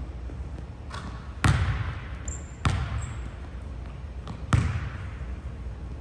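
A basketball bouncing on a hardwood gym floor. There are three loud bounces, about one and a half, two and a half and four and a half seconds in, each ringing on in the big hall.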